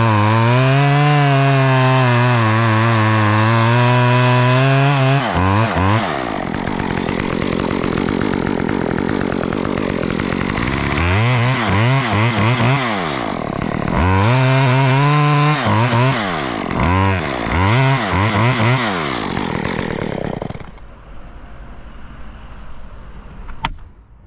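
Chainsaw cutting a notch into a white oak branch. The engine's pitch rises and falls through several throttle bursts, then the saw drops away about twenty seconds in, leaving two sharp clicks near the end.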